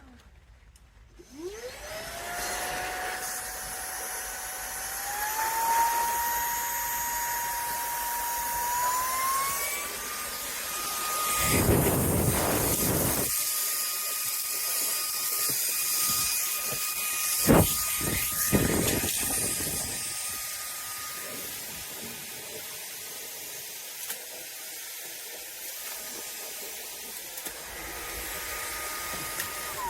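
INTETURE BP10 cordless stick vacuum switched on, its motor whine rising about a second in, then stepping up in pitch twice before running steady. Loud rushing bursts come as it pulls in air or debris, briefly twice in the middle, and the motor winds down at the very end.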